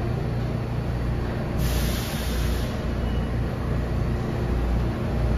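An R160 subway train idles at the platform with its doors open, giving a steady low hum. About one and a half seconds in, there is a hiss of released air lasting about a second, typical of the train's air brakes.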